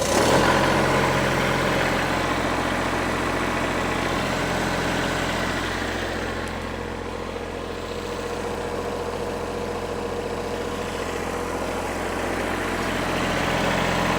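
Kubota L3301 tractor's three-cylinder diesel engine running steadily at idle just after catching, now that the hydrostatic treadle pedal has been centered in neutral and the no-start is cured.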